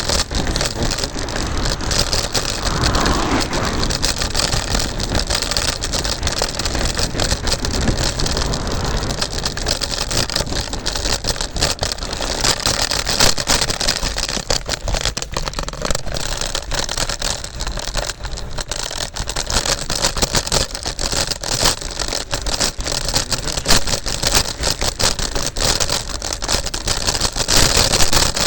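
Steady rush of wind and road rumble from an electric scooter being ridden along.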